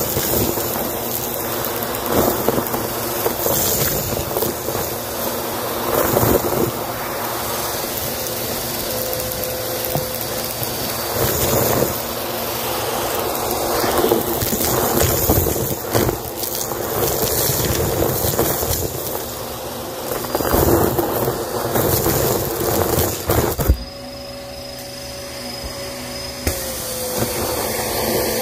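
Vacuum cleaner running while its nozzle sucks up a mix of sand, confetti, sequins and plastic bits from carpet, the debris crunching and rattling into the hose. About 24 s in the crunching stops for a few seconds and only the motor's steady whine is left, then the rattling starts again near the end.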